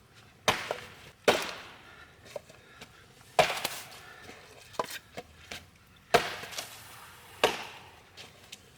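Firewood being chopped: five heavy blade strikes into wood at irregular intervals, with lighter knocks and splintering between them.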